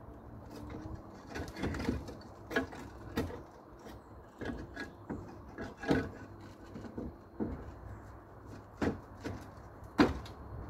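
Clay roof tiles being handled and set back in place: irregular sharp knocks and scrapes of tile on tile, the loudest near the end.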